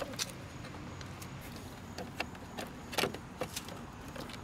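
Scattered light plastic clicks and taps as fingers work the loose side-mirror glass and its heater-wire connectors behind it, the strongest click about three seconds in.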